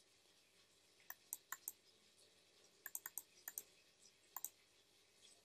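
Computer mouse button clicking about a dozen times in three quick clusters, scrolling a list down.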